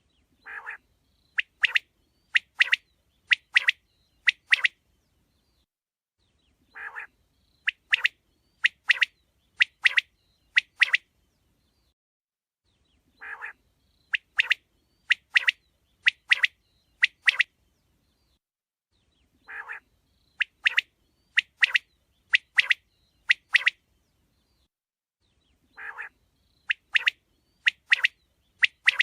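Male quail singing: each phrase is a soft, low note followed by a run of about eight sharp, loud calls. The phrase comes five times, about every six seconds, in an identical pattern.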